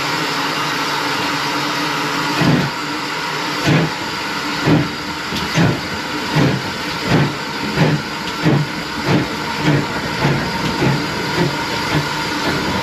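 Steam pannier tank locomotive pulling away with its train, exhaust chuffs starting about two seconds in and coming steadily faster as the train picks up speed, over a steady hiss.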